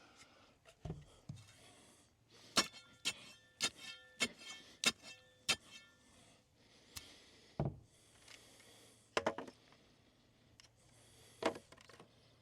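Post being tamped and knocked into line in its hole: a run of about six sharp strikes of a metal tool, ringing slightly, roughly half a second apart, with scraping of dirt or gravel between and a few duller single knocks later on.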